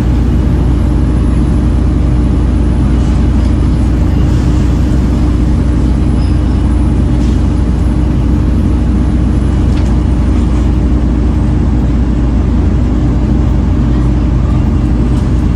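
Volvo B7TL double-decker bus running steadily under way: its D7C six-cylinder diesel drones at an even pitch, with a steady low hum and road noise and no change in engine speed.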